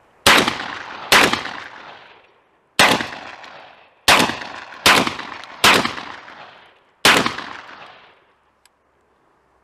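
Panzer AR-12 semi-automatic 12-gauge shotgun fired seven times in quick, uneven succession, each shot trailing off in an echo of about a second, the action cycling on every round. A faint click near the end.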